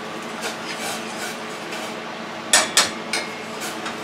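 Metal spoon knocking sharply against a cooking pot three times in quick succession, about two and a half seconds in.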